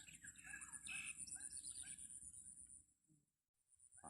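Faint forest sound: a bird calling in a quick series of short repeated notes over a steady high-pitched insect drone. It drops out for about a second near the end.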